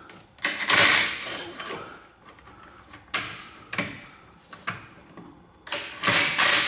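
Ratchet on a long extension bar turning an exhaust clamp bolt, clicking and scraping in several short bursts, loudest about a second in and again near the end.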